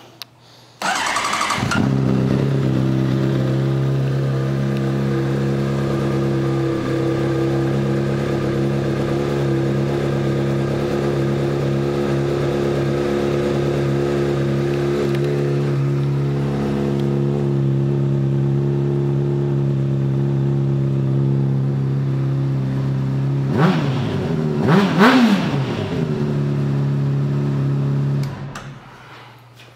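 2007 Honda CBR600RR's inline-four engine, breathing through an aftermarket Yoshimura exhaust, cranks briefly and starts about a second in, then idles steadily. Near the end it is revved twice, each rev rising and falling, settles back to idle and is switched off.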